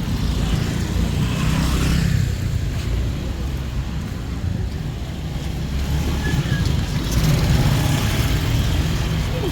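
Road traffic close by: the steady rumble of car and motorbike engines, swelling as vehicles pass about a second or two in and again near the end.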